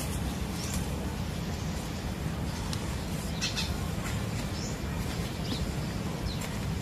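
Birds chirping in the background, about five short high chirps spread out over a steady low rumble of outdoor noise.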